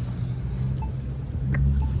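A car engine running low and steady, getting louder toward the end.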